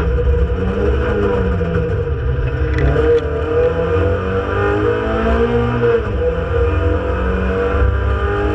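Renault Clio Sport 2.0 182's four-cylinder engine, heard from inside the cabin, running hard at racing speed, its pitch rising and falling several times as the car accelerates and lifts off.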